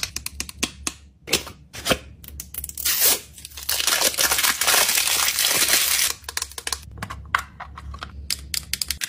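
Packaging being handled and torn open: scattered crinkles and crackles, with one continuous tearing rip lasting about two and a half seconds in the middle.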